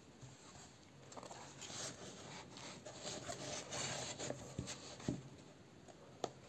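Hands handling a hardcover book, its cloth-covered spine and boards rubbing and rustling against the fingers, with a few light clicks, the sharpest one near the end.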